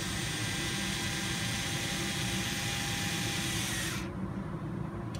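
Cordless electric screwdriver running steadily as it drives a small 2.5 mm screw into a plastic RC wheel ring to plug its vent hole; the motor stops suddenly about four seconds in.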